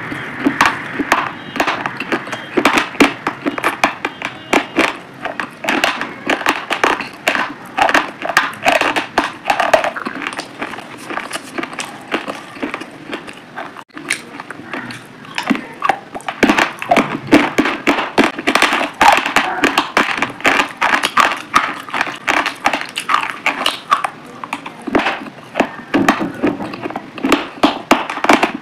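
Close-miked crunching and chewing in a person's mouth: a fast, uneven run of crisp cracks, with a brief dropout about halfway through.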